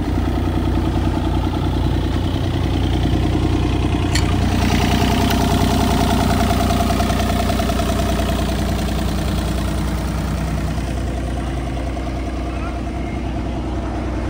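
A Bobcat E35i mini excavator's 24.8 hp Tier 4 diesel engine idling steadily. There is a sharp click about four seconds in, after which the engine sound gets a little louder and a higher steady tone joins it for a few seconds.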